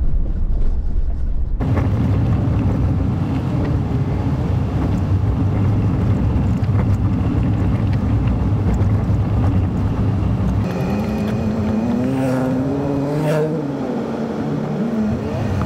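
Land Rover Discovery 3's 2.7-litre TDV6 diesel engine running steadily under load as it climbs a gravel track, heard from inside the cabin along with tyre and road noise. Near the end a higher note rises and falls.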